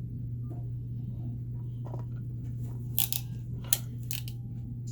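A few sharp clicks from handling a crimping tool and 30A Anderson connector parts: two close together about three seconds in, then a louder single click and another shortly after. A steady low hum runs underneath.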